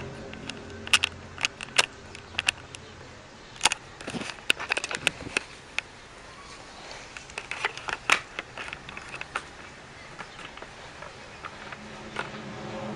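Irregular sharp clicks and crackles, coming in clusters about one, four to five and eight seconds in, over a faint steady hiss.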